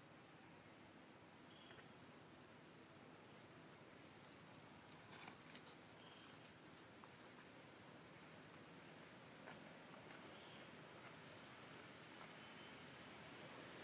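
Near silence: a faint, steady, high-pitched insect drone, with a couple of faint clicks about five and nine seconds in.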